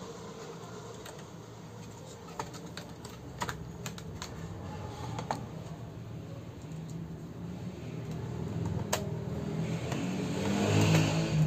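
Scattered light clicks and taps of hands and a screwdriver working on an opened LCD TV's power board and metal chassis, over a low steady hum. A louder, rougher stretch comes near the end.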